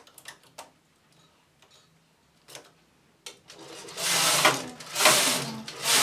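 Domestic flatbed knitting machine: a few light clicks as the metal needles are handled with a transfer tool for a decrease, then a little past halfway the carriage is pushed across the needle bed, knitting a row with a loud rattling swish that swells and eases.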